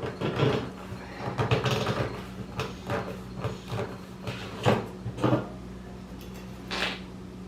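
Irregular knocks, clicks and scrapes of hands handling and opening up a portable generator, over a steady low hum.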